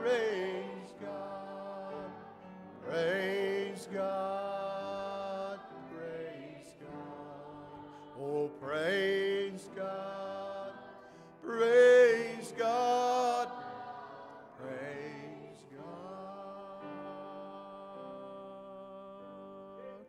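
Worship music: sustained keyboard chords held steadily, with a voice coming in over them several times in short, wavering sung phrases, the loudest about twelve seconds in.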